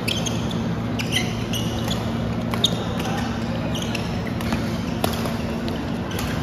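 Badminton rally: sharp racket hits on the shuttlecock a second or two apart, with short squeaks of court shoes on the floor, over a steady low hum in a large echoing hall.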